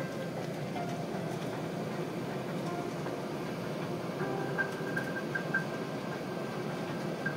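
Steady cabin rumble inside an Airbus A380-861 taxiing after landing, with a few faint short high pips from about four seconds in.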